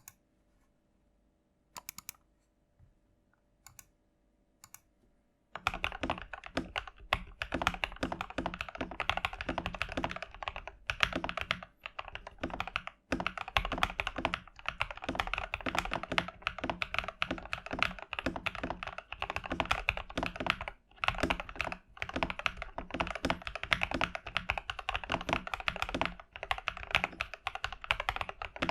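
Typing on a TM680 65% mechanical keyboard kit with lubed Tecsee Carrot linear switches, PBT keycaps and a hollow plastic case: a few single keystrokes, then steady fast typing from about five seconds in, a deep thocky clacking.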